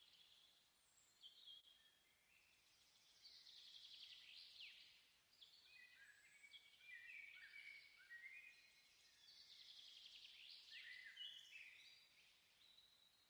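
Faint birdsong: a fairly continuous run of chirps, quick trills and short downward-sweeping whistles from more than one bird.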